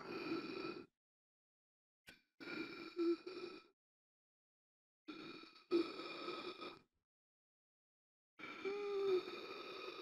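A person gasping for air: a run of strained, breathy gasps, each a second or two long, with dead silence between them. There are four of them, roughly every two and a half seconds. The last has a short voiced groan in it.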